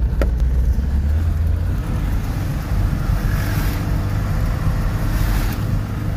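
Mahindra Bolero pickup driving on a snow-covered road, heard from inside the cab: a steady low engine and road rumble. There is a brief click just after the start and two hissing swells in the second half.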